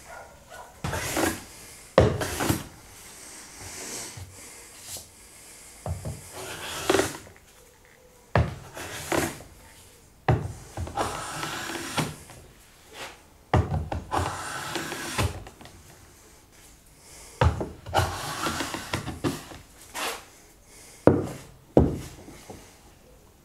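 Metal bench hand plane planing the edge of a dovetailed maple and bog oak box, repeated strokes: each starts with a sharp knock and is followed by a short rasping hiss of the blade taking a shaving.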